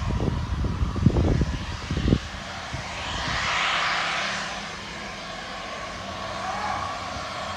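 Twin-engine business jet rolling on the runway after landing: a steady turbine whine with a rushing surge of engine noise that swells about three seconds in and eases off. Wind buffets the microphone in the first two seconds.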